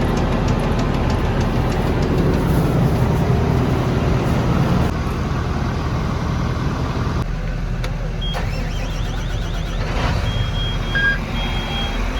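Heavy farm machinery engine running steadily, with the sound shifting a couple of times. About ten seconds in, an electronic beeping starts and repeats roughly once a second, like a warning or reversing alarm.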